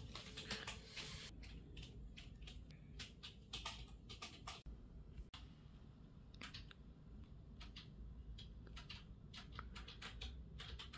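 Faint, irregular small clicks and ticks over a low steady hum, in a quiet room.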